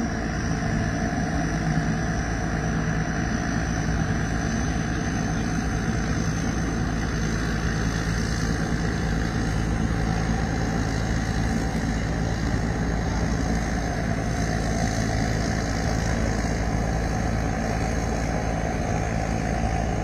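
Rice combine harvester running steadily while it cuts rice: a constant, even engine drone with no change in pace.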